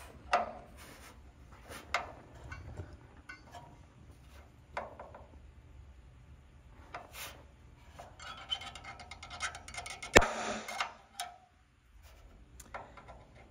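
Tool handling and rubbing on aluminum, with a few light knocks and one sharp, loud snap about ten seconds in: a center punch marking the dimple of an AN426 flush-head rivet.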